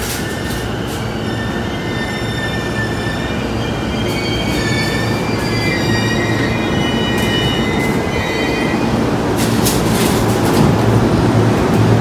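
Electric commuter train on the JR Keiyo Line pulling into a station platform, its wheels and brakes squealing in high tones as it slows over a steady rumble that grows louder. A few sharp clicks come near the end.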